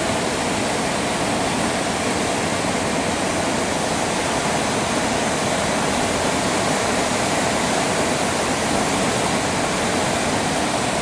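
Steady rushing noise of the Kuma River in flood, a fast torrent of muddy floodwater running high over its banks.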